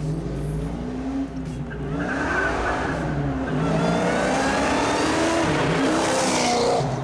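Kenne Bell twin-screw supercharged 331 stroker Ford V8 with Flowmaster Super 44 mufflers accelerating hard past, the exhaust note climbing and getting louder from about two seconds in, with a rising supercharger whine over it.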